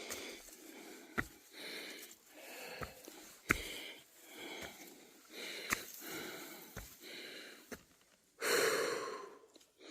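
Heavy breathing of a person climbing steep stone stairs, breaths in and out about once a second, with a few sharp footstep knocks; one louder, longer breath near the end.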